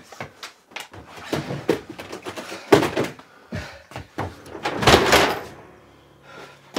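Knocks and clunks of wooden boxes, cupboard doors and small objects being opened, picked up and set down while a room is rummaged through, with one sharp knock a little under three seconds in and a longer, louder clatter about five seconds in.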